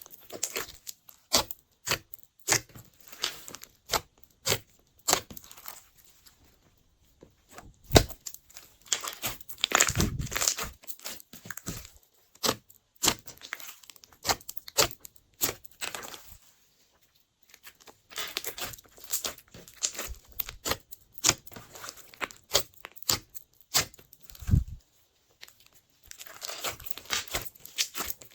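Glossy slime being squished, stretched and folded by hand, giving off quick irregular sticky clicks and crackling pops, with two short pauses.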